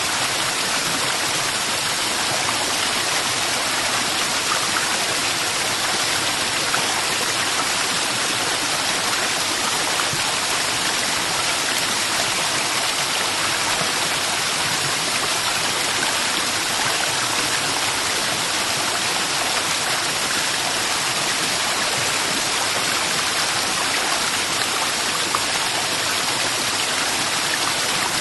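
Steady rushing of a waterfall, an even hiss of falling water that never breaks or changes.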